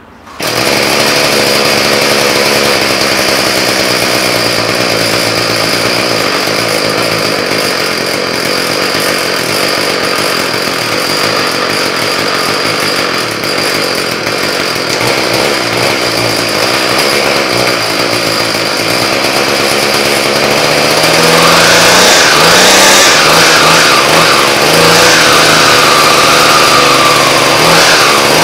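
Troy-Bilt TB70SS string trimmer's two-stroke engine catching on a cold start with the spring-assist pull and then running steadily. From about 21 seconds in it is revved up and down several times, louder, the pitch rising and falling.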